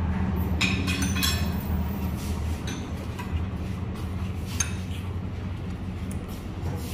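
Cutlery and crockery clinking at a dining table: a quick cluster of light clinks in the first second and a half, then a few single clinks later. A steady low hum runs underneath.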